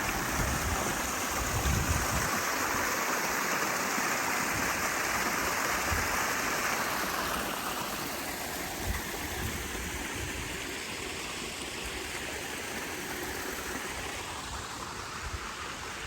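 Small waterfall in a garden, a steady rush of falling and splashing water that eases somewhat after about eight seconds.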